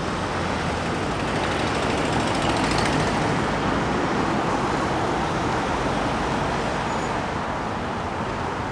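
Road traffic on a city street: a steady rush of passing vehicles that builds over the first couple of seconds and then holds.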